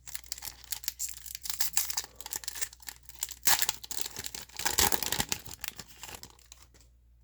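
Crinkling and tearing of a trading card pack's wrapper as it is ripped open, loudest in a burst of tearing past the middle and trailing off near the end.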